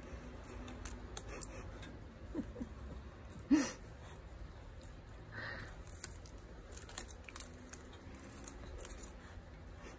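Faint, scattered clicks and rustles of a baby handling a soft tape measure, with one short, sharp voice-like sound about three and a half seconds in.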